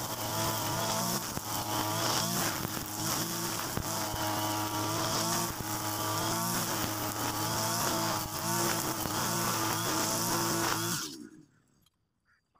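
Mitsubishi brush cutter engine running at high speed, its nylon trimmer line whipping through grass, the engine speed wavering a little as it cuts. The sound cuts off suddenly about eleven seconds in, leaving near silence.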